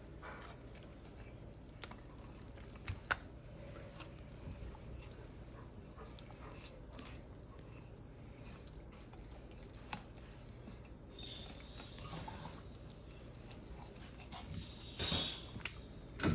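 Faint clicks and taps of a knife working through raw chicken while it is being deboned, with a couple of sharper clicks about three seconds and ten seconds in.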